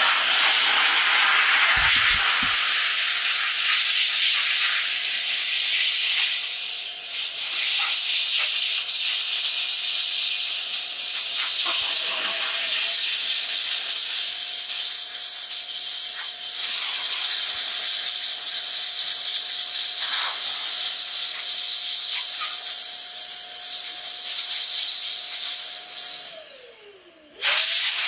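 Corded handheld electric air blower running steadily, blowing air over a wet metal GPU heat sink to dry it: a loud rush of air with a steady motor whine under it. Near the end it cuts out briefly, the whine falling in pitch as the motor winds down, then starts again.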